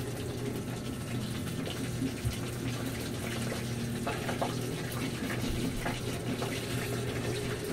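Steady rushing background noise with a constant low hum and a few faint ticks.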